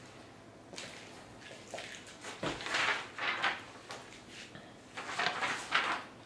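Rustling of paper sheets being handled, in several short bursts, with a light knock about two and a half seconds in.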